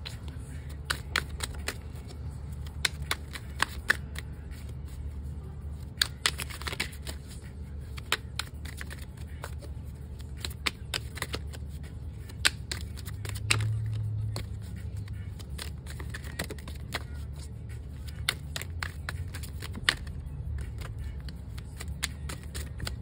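A deck of tarot cards shuffled overhand by hand: a run of irregular sharp card snaps and taps, over a steady low hum.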